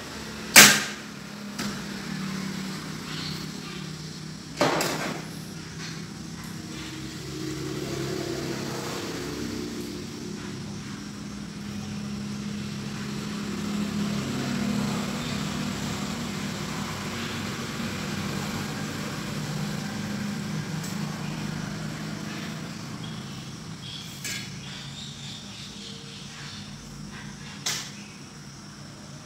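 Sharp knocks from a ripe jackfruit and knife being handled on a steel plate: the loudest comes about half a second in, another near five seconds, and two smaller ones near the end. A steady low hum runs underneath.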